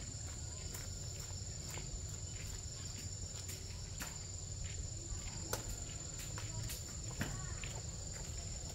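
Insects chirring steadily and high-pitched, with scattered small clicks and rustles.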